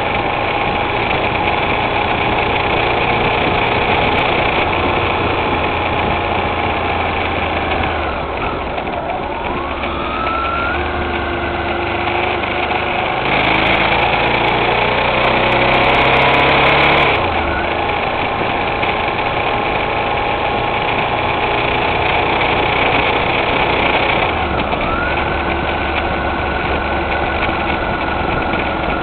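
Motorcycle engine running on the road, heard from on board; the engine pitch climbs about eight seconds in and again near the end as the revs rise, with a louder rush of noise for a few seconds around the middle.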